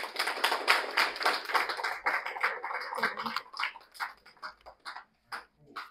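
Audience applauding: dense clapping for about three seconds that thins out to a few scattered claps near the end.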